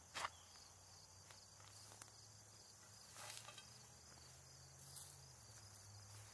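Faint sounds of a steel spade being worked into grassy, root-filled soil: a sharp crunch just after the start and a brief scraping crunch about three seconds in. Insects chirp faintly and steadily in the background.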